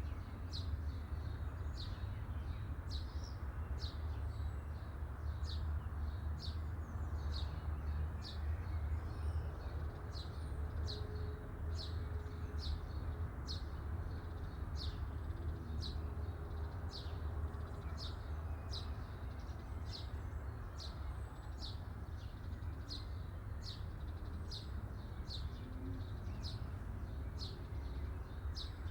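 A small bird repeating a short, high chirp over and over, about three chirps every two seconds, over a faint steady low rumble.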